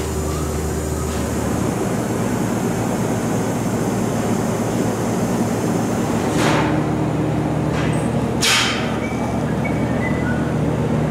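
Steady mechanical hum from running machinery, with two short bursts of hiss about six and eight and a half seconds in.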